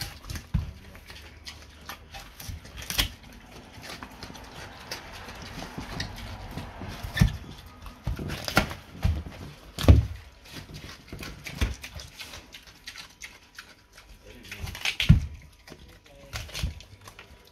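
A pig eating pumpkin: irregular chewing and crunching of the flesh, with a few louder knocks scattered through it.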